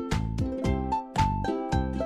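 Cheerful background music with a steady beat, plucked notes on a bright, children's-style tune.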